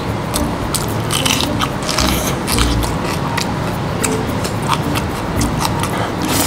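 A person eating close to the microphone: irregular crisp crunches and chewing as he bites a raw green chili pepper, then chews a spoonful of rice.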